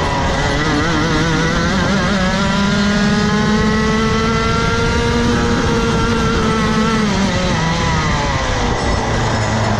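Rotax Max Evo 125 cc single-cylinder two-stroke kart engine under full throttle, its pitch climbing steadily as the kart accelerates out of a corner, then falling away under braking about seven seconds in and picking up again near the end.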